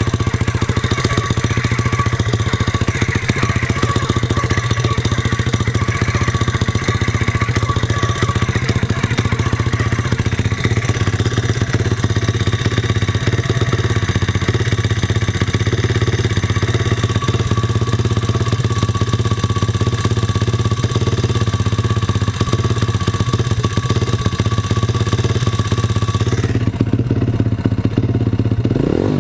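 YX 149 cc single-cylinder four-stroke pit bike engine running at a steady speed, with a clattery mechanical noise. Near the end the high hissing part of the sound cuts off suddenly while the engine note carries on.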